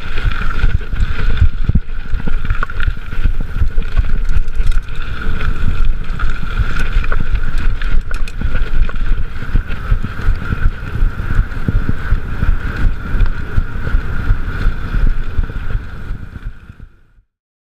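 Mountain bike riding fast over a dirt singletrack, recorded on a chest-mounted action camera: wind buffeting the microphone and tyre rumble with frequent small knocks and rattles over bumps, under a steady high whine. The sound fades out near the end.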